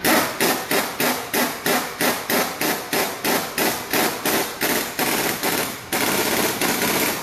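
Impact wrench rattling in short, even bursts about three a second, then running steadily for a little over a second near the end, on the suspension mounting nuts.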